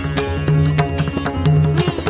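Instrumental interlude of Haveli sangeet devotional music: plucked strings ringing over a steady pattern of hand-drum strokes and a sustained drone.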